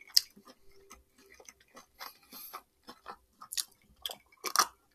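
Close-miked mouth sounds of eating and drinking: a sharp click at the start, then scattered small wet clicks of chewing and of sipping and swallowing cold iced tea from a mug.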